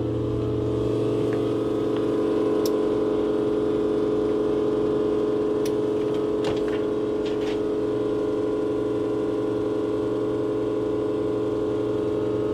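Steady electric machine hum of unchanging pitch, with a few light clicks over it.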